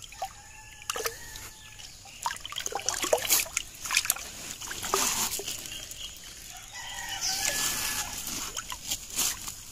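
Shallow water splashing and sloshing as a hand stirs it around a large fish lying on a tarp. A rooster crows near the start and again about seven seconds in.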